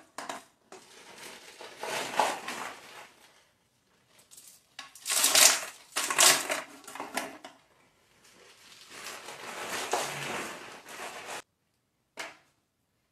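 Ice cubes poured into a bucket, clattering and crunching against the metal pot set inside it, packing ice around the pot to freeze the ice-cream mix. The ice goes in as three long pours and a short last rattle near the end.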